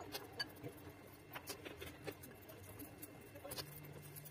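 Kitchen scissors snipping boiled intestines into thin rings: faint, irregular sharp snips and clicks of the blades.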